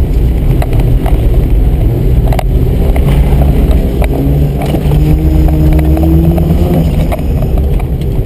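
1982 Mazda RX-7's two-rotor rotary engine pulling hard, heard from inside the cabin. Its note climbs steadily in the middle as the car accelerates between cones.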